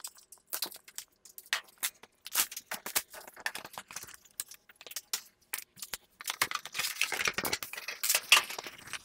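Cardboard packaging being opened: scattered rustles and scrapes as the box is cut and the inner box slid out. About six seconds in, this gives way to denser, louder plastic bubble-wrap crinkling as the wrapped power supply is handled.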